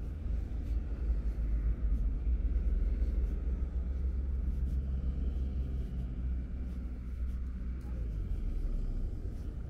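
Low rumble of street traffic as cars drive along the road beside the sidewalk, swelling about two to four seconds in as a car passes and easing near the end.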